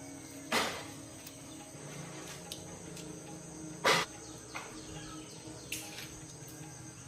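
Two loud sharp knocks about three seconds apart, each ringing briefly, followed by a few lighter clicks, over faint steady high-pitched tones in the background.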